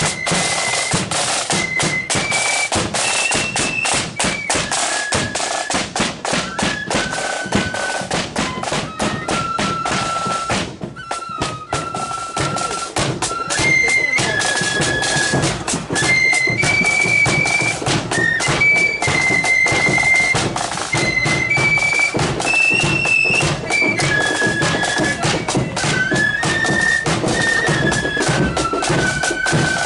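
Marching flute band playing a tune: high flute melody in held, stepping notes over steady snare and bass drum beats. The band gets louder about halfway through.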